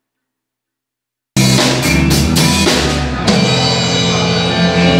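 Silence for about a second, then a live rock band starts suddenly and plays loudly: drum kit with bass drum and snare, electric bass and electric guitar.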